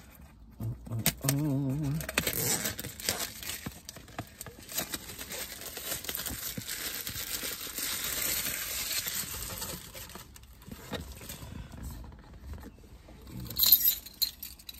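Clear plastic shrink wrap being torn and crinkled off a cardboard box by hand, a steady run of crackling rustles. A louder, sharp rustle comes near the end.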